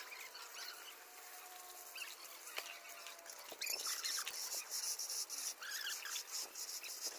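Hand tools scraping and smoothing wet concrete: faint at first, then a louder hissing scrape with quick clicks from about three and a half seconds in.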